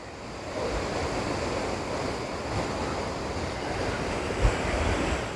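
Steady rushing noise of Jog Falls' falling water, mixed with wind, swelling over the first second. Low wind gusts buff the microphone a couple of times near the end.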